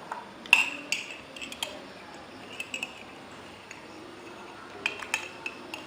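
A metal utensil clinking against a dish, a few sharp ringing clinks near the start, a few more in the middle and another cluster near the end, as seeds are picked out of freshly squeezed lime juice.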